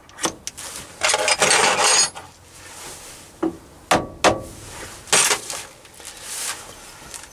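Steel lathe tooling being handled as a live-centre tip is changed: a series of separate metal clinks and knocks, a couple of them ringing briefly, with rustling of hands on the parts between them.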